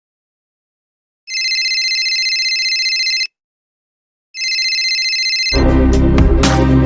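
An electronic telephone ringer trills in two rings, the first about two seconds long, with a second of silence between them. The second ring breaks off about five and a half seconds in, when music begins.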